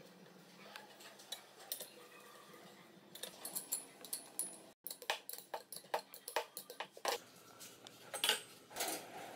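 Irregular metal clinks and taps: a spanner working a bolt on a steel pipe frame and steel pipe parts knocking together as they are handled, with a few louder knocks near the end.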